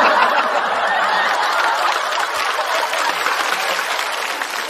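Studio audience applauding and laughing in response to a punchline, slowly dying down.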